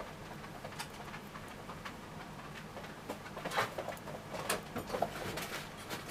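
Knitting needles clicking and yarn rustling as a row of 1x1 rib is knitted, with a cluster of louder clicks in the second half.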